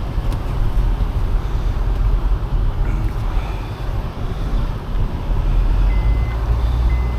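Vehicle engine running with a steady low rumble; about six seconds in, a reversing alarm starts beeping, roughly once a second.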